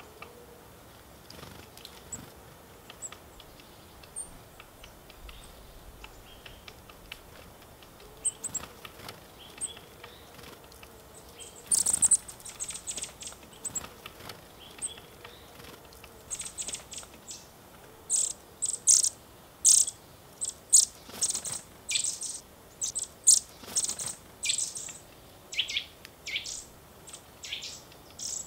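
Small woodland birds calling: scattered short, high chirps at first, then a dense run of loud, high call notes in the second half, with a few lower calls sliding downward near the end.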